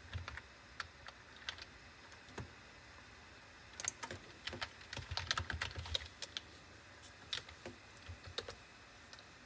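Typing on a Logitech computer keyboard: scattered single keystrokes, with a quick run of keys from about four to six seconds in.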